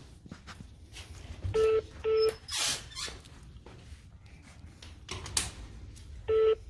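Telephone line on hold: a double beep, two short steady tones half a second apart, repeating near the end. Between the beep pairs comes a brief squeak, with small handling clicks around it.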